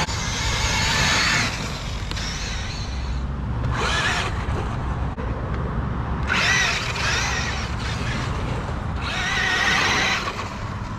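Traxxas e-Revo RC truck's electric motor whining in about five throttle bursts, its pitch rising and falling in each, over a steady low rumble.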